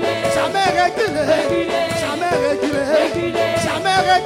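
Upbeat gospel praise music: singing voices over a steady rhythmic beat.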